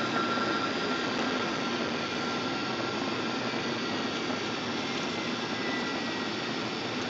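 Steady cabin noise of a jet airliner on approach, heard from a window seat beside the wing-mounted engine: an even rush of engine and airflow with a faint high whine.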